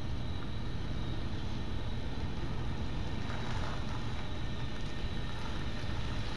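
NJ Transit train led by an ALP-46 electric locomotive approaching, a steady low rumble with a faint high whine over it, mixed with wind noise on the microphone.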